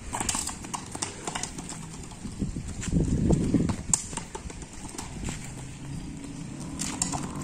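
Scattered light taps and slaps of a toddler's flip-flops and a plastic football on concrete paving stones as the ball is kicked and chased, thickest near the start and again near the end. A louder low burst of sound about three seconds in.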